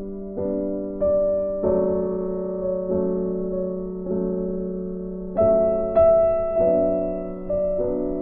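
Background piano music: notes and chords struck about once a second, each left to ring and fade.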